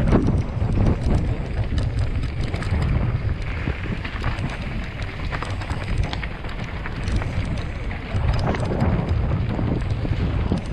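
Wind rushing over a GoPro microphone on a downhill mountain bike descent, with a dense low rumble of tyres on a dry dirt trail and many quick clattering knocks from the bike jolting over bumps.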